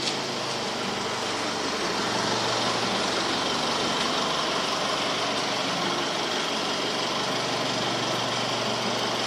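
Car running with a steady mix of engine hum and broad noise, growing a little louder over the first two seconds and then holding steady.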